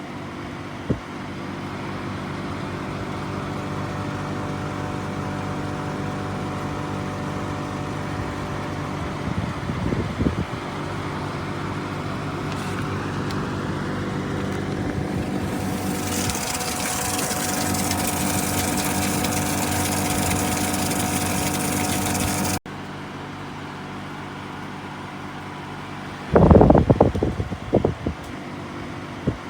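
GE Profile ClearView window air conditioner running: a steady hum with several steady tones, under fan air noise that rises in pitch and grows louder about halfway through. The sound cuts off abruptly and drops back to a quieter hum, with a few loud knocks near the end.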